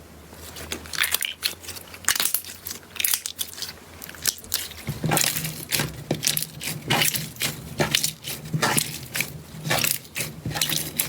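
Slime being squeezed and kneaded by hand, giving a run of short, sharp pops and squelches at about two a second.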